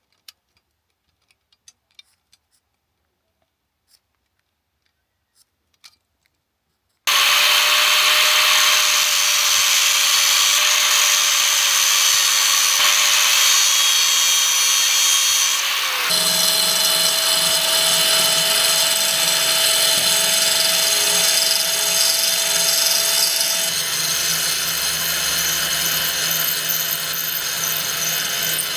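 A few faint clicks, then a power tool starts abruptly about seven seconds in and runs steadily with a whine in its sound. The pitch steps up slightly about halfway through.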